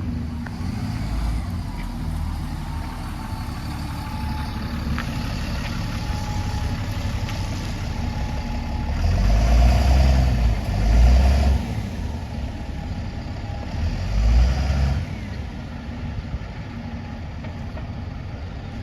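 Double-decker bus engine running, its low rumble swelling twice as it pulls with more power: once around the middle and again a few seconds later.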